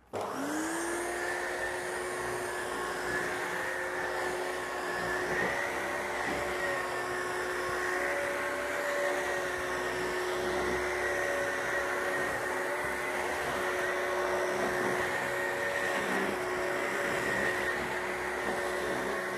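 Upright vacuum cleaner switched on, its motor rising in pitch for a moment as it spins up, then running steadily as it is pushed over carpet.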